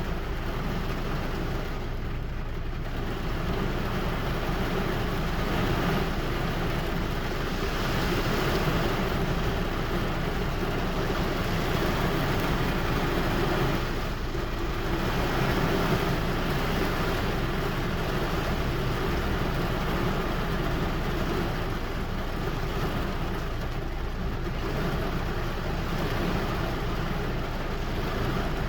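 Steady rain falling, a continuous even hiss with a heavier low rumble underneath.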